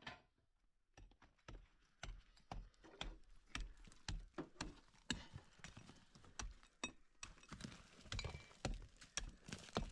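A string of irregular knocks and dull thuds, roughly two a second, starting about a second in.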